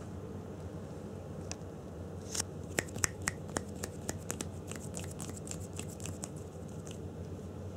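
Two cats wrestling on a crocheted blanket: an irregular run of small sharp clicks and scratches from claws catching in the yarn. It starts about two seconds in, is thickest around three seconds, and thins out near the end.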